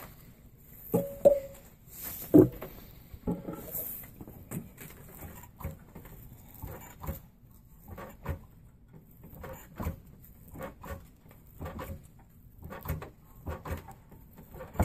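Strands of a bronc rein being braided by hand: irregular rustling, swishing and soft taps and clicks as strands are crossed over and pulled tight. A brief squeak comes about a second in.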